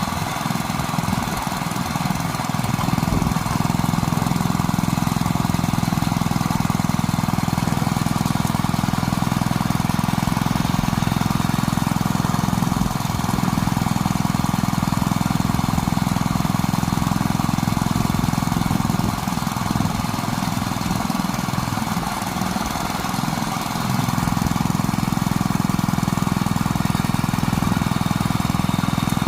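A small engine running steadily, which eases off briefly about two-thirds of the way through.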